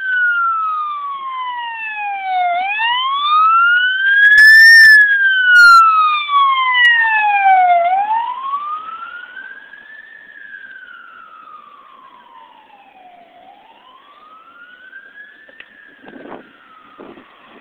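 An emergency vehicle's siren wailing in slow rising and falling sweeps of a few seconds each. It is loudest around five seconds in, then fades as it moves off.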